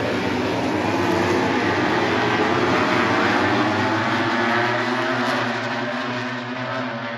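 A pack of MotoGP race motorcycles, 1000 cc four-cylinder four-stroke engines at high revs, passing one after another with overlapping, shifting engine notes. The sound fades over the last couple of seconds as the bikes pull away.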